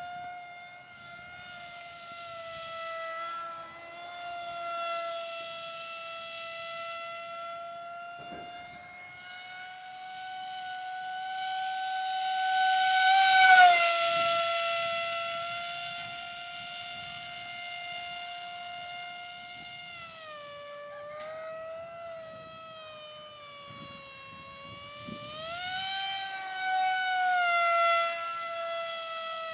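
Electric 2212 2200 kV brushless motor and 6x4 propeller of a foam RC F-117 whining in flight. It grows loud as the plane passes close about 13 seconds in, with a sharp drop in pitch as it goes by. The pitch then dips and climbs with the throttle, and a second loud pass comes near the end.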